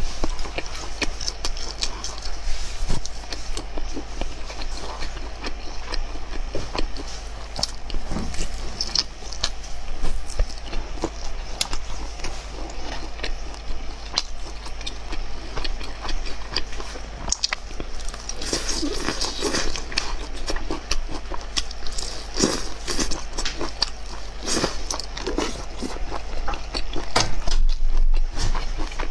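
Close-miked biting and chewing of fried skewers of meat, green peppers and tofu: a dense run of wet mouth noises and small clicks, loudest near the end.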